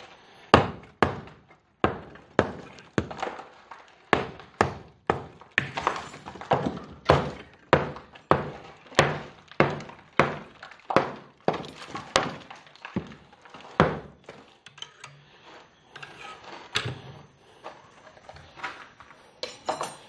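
Repeated hammer blows breaking into masonry, about two strikes a second, thinning out to scattered, lighter knocks after about 14 seconds.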